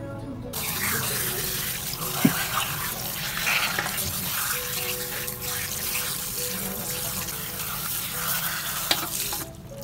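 Tap water running into a basin and splashing over a wig being rinsed in the stream; the flow starts suddenly about half a second in and stops shortly before the end. A sharp knock sounds about two seconds in.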